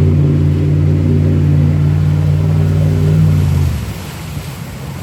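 Pickup truck engine running hard at steady revs, then easing off about three and a half seconds in, leaving a lower rumble.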